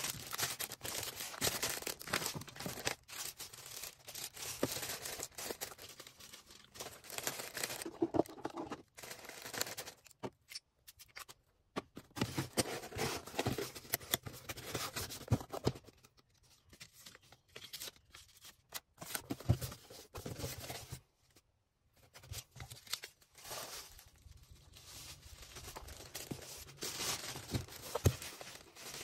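Orders being packed by hand: packaging rustling, crinkling and tearing in irregular bursts with small clicks, broken by two short pauses.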